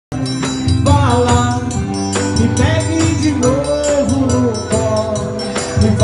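Live band music: a man sings a Portuguese-language song while beating a drum with a stick in a steady rhythm, with other instruments behind him.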